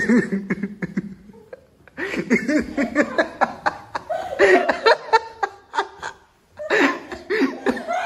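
Hearty laughter in repeated bursts, with short lulls about a second in and again about six seconds in.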